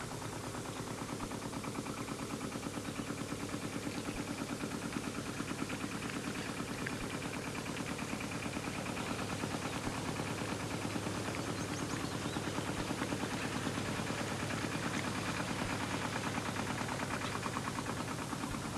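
Small fishing boat's engine chugging with a rapid, even beat, growing slowly louder over the first half.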